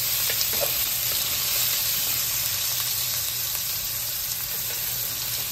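Chopped onion sizzling steadily in hot ghee in a stainless steel pan, the tempering of cumin and mustard seeds, stirred with a wooden spatula.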